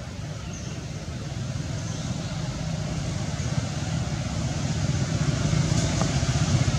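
Low rumble of a motor vehicle's engine, growing steadily louder as it draws nearer.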